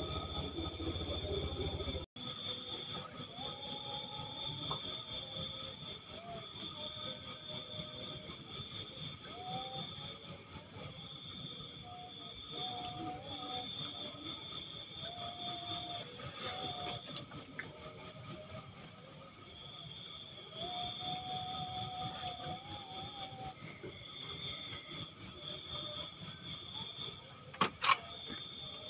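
Night insects, crickets or katydids, chirping in long trains of high pulses, several a second, with brief pauses, over a steady high trill. A single faint click comes near the end.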